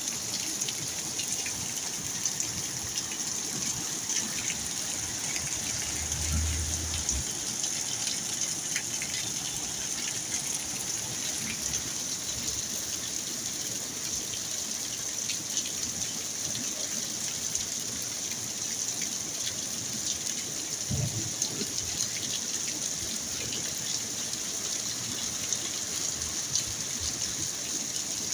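Storm rain falling steadily, with water gushing and running. Two brief low rumbles come about six and twenty-one seconds in.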